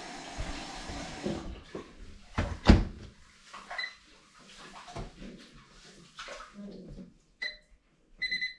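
Microwave oven keypad beeping as its buttons are pressed to set the power and time: single short beeps a few seconds apart, then a quick run of beeps near the end. A loud thump comes about a third of the way in.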